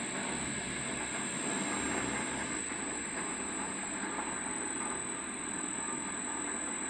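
A 120-ton self-adjusting welding rotator's travel drive running, its carriage rolling along its rails: a steady rolling rumble with a constant high electric whine from the drive.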